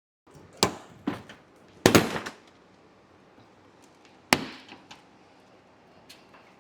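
Sharp plastic cracks and snaps, about four or five loud ones over a few seconds, as a car's front bumper cover is pulled loose and its retaining clips pop free.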